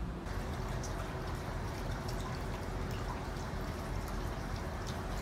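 Hot-spring water pouring into an open-air bath: a steady trickling and splashing with many small drips.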